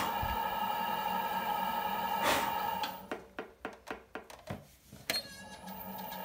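Electric potter's wheel motor hum, steady and multi-toned. About three seconds in it stops, and a knife makes a quick run of short clicks and scrapes on the leather-hard clay; the hum comes back near the end.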